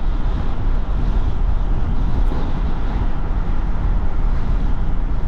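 Steady road and engine noise of a moving car, heard from inside the cabin, heavy in the low end and even throughout.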